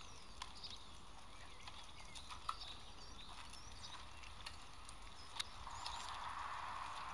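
Faint background ambience: a few short high bird-like chirps and scattered sharp clicks, with a soft steady hiss coming in near the end.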